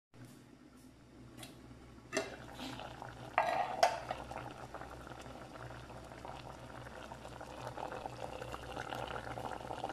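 Aluminium pot lid knocked and then clattering as it is lifted off, about two and three and a half seconds in, followed by coconut-milk sauce with tilapia bubbling steadily at a boil in the open pot.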